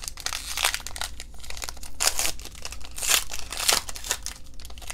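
Foil wrapper of a Panini Elite football card pack crinkling and tearing as it is ripped open by hand, with a few louder rips about two to four seconds in.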